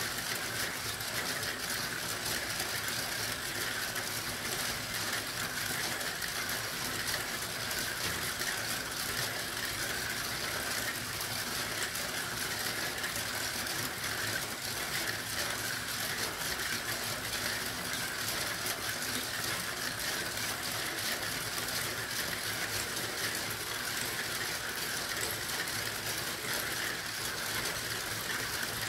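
Many marbles rolling at once through a Gravitrax marble run: a steady, dense rattle of small clicks as they run along the rails and drop through the plastic tiles.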